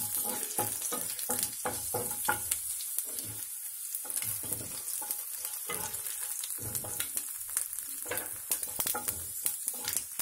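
Hot oil sizzling in a kadai as a tempering of chana dal, mustard seeds, cumin and a dried red chilli fries and is stirred with a spoon. A steady hiss runs under many short, sharp clicks and taps.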